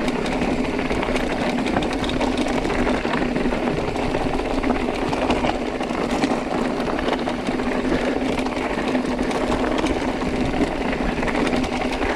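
Mountain bike rolling fast downhill over loose rocks: a steady rattle and clatter of tyres and bike over the stones, with a continuous buzz underneath.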